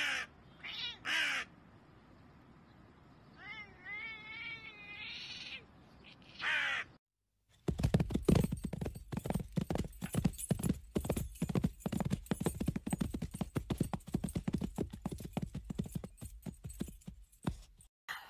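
A crow calls several times, short calls and one longer wavering call. About seven seconds in there is a brief cut-out, then a long, loud stretch of rapid, irregular thumping and rustling.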